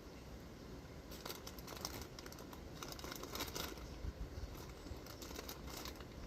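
Faint crinkling of packaging with light clicks of small parts being handled: the fittings and gasket of a replacement fuel pump kit being sorted.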